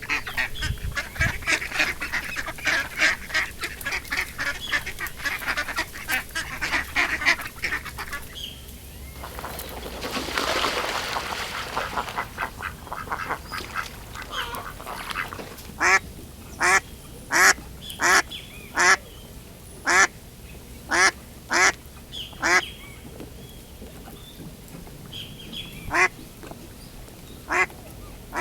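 A duck quacking: a fast run of short calls for the first eight seconds, then, after a brief rushing noise around ten seconds in, a series of loud single quacks about one a second, with a few more near the end.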